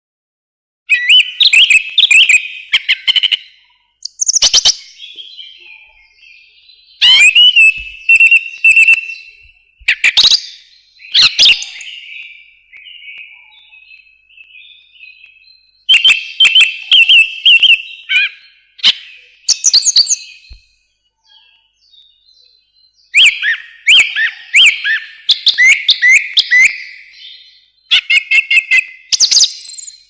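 Thrush singing: phrases of quick, clear whistled notes mixed with sharp, higher twitters, each phrase lasting one to three seconds, with pauses of a few seconds between them.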